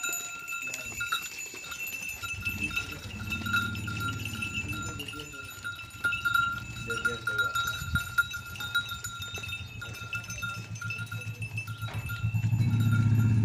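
A herd of Sirohi goats bleating in long, low, wavering calls, loudest near the end, over a steady high ringing tone.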